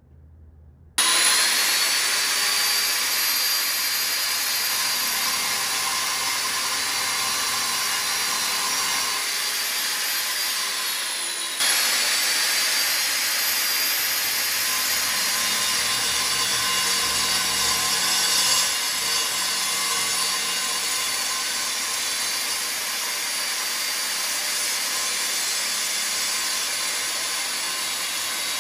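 Angle grinder with a large disc cutting into the wall, raising thick dust. It starts about a second in and runs steadily: a high motor whine over gritty grinding.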